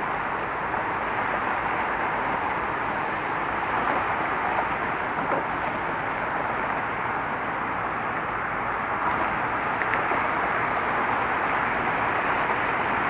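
Steady traffic noise: an even hiss of car tyres and engines from many vehicles passing continuously on a multi-lane roadway.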